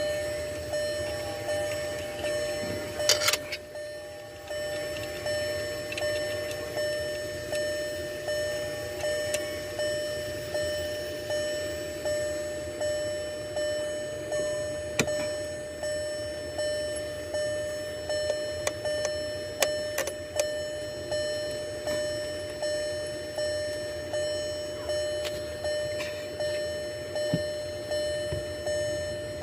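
A car's warning chime sounding over and over, a pitched ding about once a second that fades after each stroke. A few sharp clicks and knocks from work on the car, the loudest about three seconds in.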